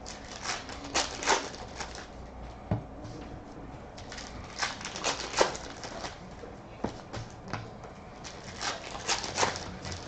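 Baseball card pack being opened and its cards handled: a crinkling wrapper and a stack of cards flicked and slid through by hand, making irregular short rustles and snaps in clusters.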